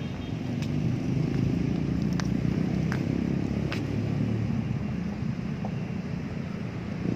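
Steady low rumble of city traffic, with a few faint clicks scattered through it.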